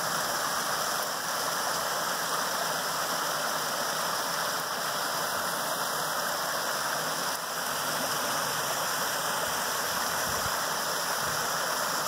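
Small landscaped waterfall: water spilling down over boulder ledges into a pond, a steady rushing splash.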